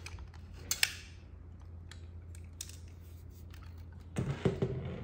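Sharp mechanical clicks and clacks of an airsoft gun being handled: a quick double click about a second in, then a cluster of heavier clacks near the end.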